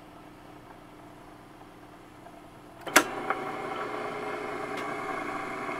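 Wollensak Model 2820 AV cassette recorder starting up: about three seconds in a sharp click as a control key is pressed, then the machine runs with a steady hum.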